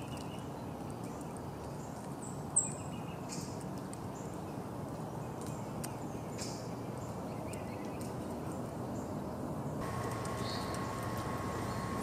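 Backyard ambience with a steady low background hiss, broken by short, high songbird chirps and call notes here and there; the sharpest chirp comes about two and a half seconds in. A thin steady tone joins the background near the end.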